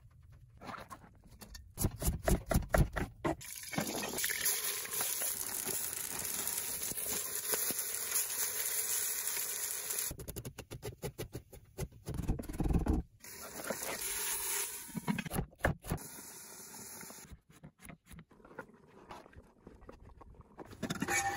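Lamb and onions sizzling as they brown in a cast iron potjie pot, with a wooden spoon stirring and scraping. Loud knocks and clatter come twice, near the start and again about halfway, as ingredients are handled and tipped from a wooden board into the pot.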